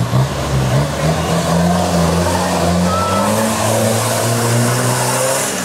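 Mitsubishi Pajero 4x4's engine revving hard under load as it climbs out of a mud pit, its pitch rising and falling, with a hiss of wheels spinning in the mud in the second half.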